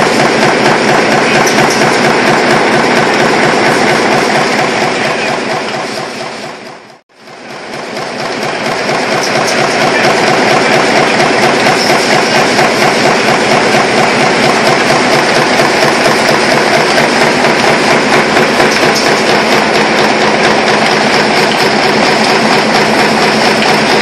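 High-speed stamping press running a progressive die that punches washing-machine motor laminations, a fast, even clatter of press strokes. The sound dips away almost to nothing about seven seconds in and comes back.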